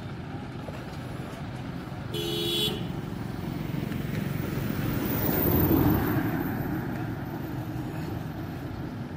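Road traffic with a short vehicle horn toot about two seconds in, then a vehicle passing, loudest about six seconds in.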